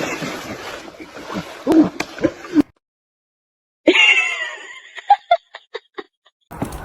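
Frozen ice singing: a sudden hit about four seconds in sets off several whistling tones falling in pitch, laser-like, followed by a handful of short pings. Before it, a noisy rustling stretch with a few soft knocks ends abruptly in a second of silence.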